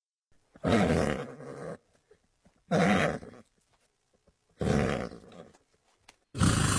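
Pachycephalosaurus creature sound effect: four short, rough growls about two seconds apart, each lasting about a second.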